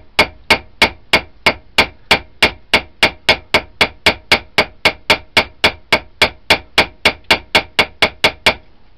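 Small ball peen hammer tapping steadily on a knife-handle rivet resting on the anvil face of a bench vise, peening the rivet head down, about three and a half even blows a second. The tapping stops shortly before the end.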